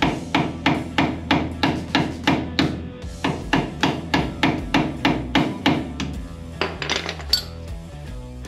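A hand hammer striking metal in rapid, even blows, about three a second, on a car's front wheel hub assembly during teardown. The blows stop about six seconds in, a few lighter clicks follow, and background music comes in near the end.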